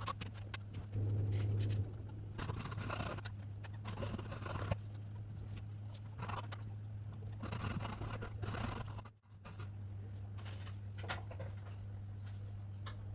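Woodworking hand-tool sounds: bursts of scraping and rasping on wood, about a second each, with scattered sharp clicks and taps over a steady low hum. The sound drops out briefly about nine seconds in.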